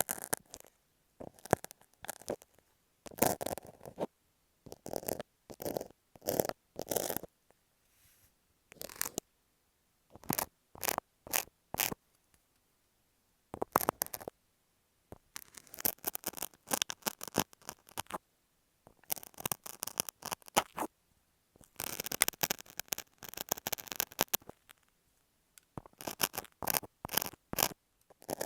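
Box cutter and masking tape worked against earphone microphones: close scratching, scraping and clicking in short bursts separated by brief pauses.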